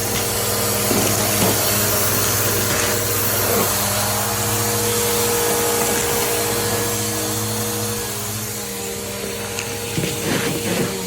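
Bissell vacuum cleaner running steadily while sucking up Lego bricks. The bricks clatter through it in scattered clicks and rattles, with a cluster near the end.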